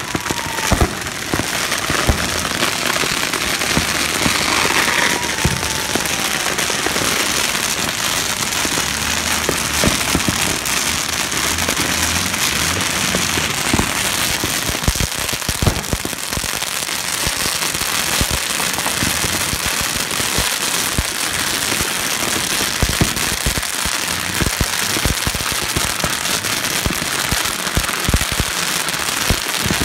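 Strings of firecrackers burning on the ground: a dense, continuous crackle of rapid small pops with louder bangs scattered through. Two short falling whistles sound in the first few seconds.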